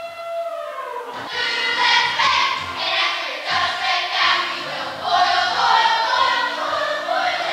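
Children's chorus singing a stage-musical number with accompaniment. A single held note slides down and ends about a second in, then the full chorus comes in.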